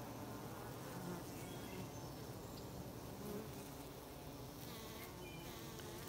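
A mass of honey bees buzzing, a faint steady hum.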